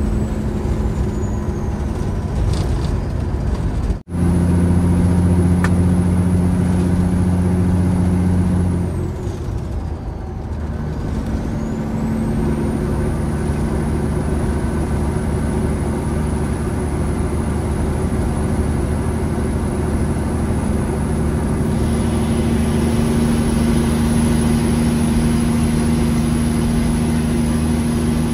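Diesel engine and road noise heard inside the cab of a 1998 Peterbilt 379 semi truck on the move, running steadily. About nine seconds in the engine note drops and a high whine dips and then comes back.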